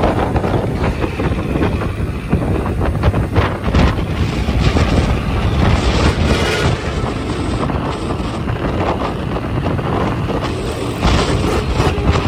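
Road noise from moving vehicles: a steady engine and tyre rumble with wind buffeting the microphone.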